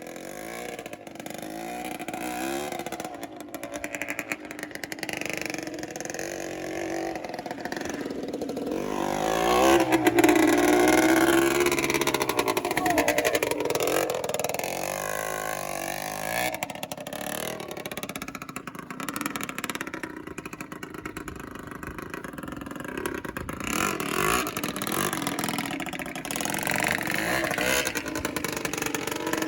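A motor vehicle engine revving and accelerating, its pitch rising and falling. It is loudest about ten seconds in, then settles to a lower, steadier running.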